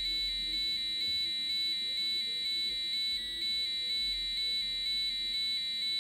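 Electronic buzzer of a homemade intruder alarm sounding continuously, switching back and forth between two high pitches several times a second. The alarm is triggered because its photoresistor senses light.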